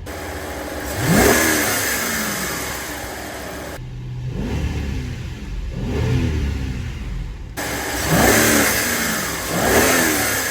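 VW Phaeton 4.2-litre V8 revved in several quick blips, each rising sharply and falling back to idle, to check that freshly replaced intake manifold runner actuator arms move the runners.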